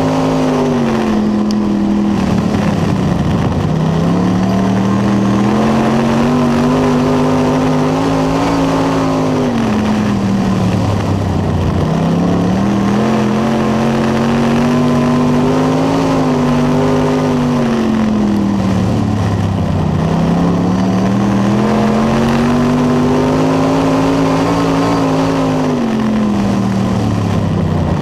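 Dirt late model's V8 racing engine, heard from inside the cockpit under race load. It climbs in pitch and then drops off again in a repeating cycle about every eight seconds, with low points about three and a half, twelve, twenty seconds in and near the end.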